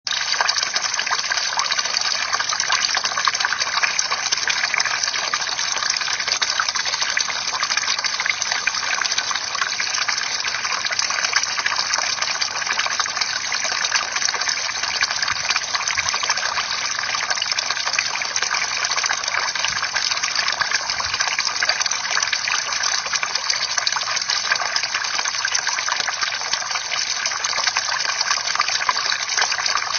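Bamboo water fountain: water pouring and splashing steadily without a break.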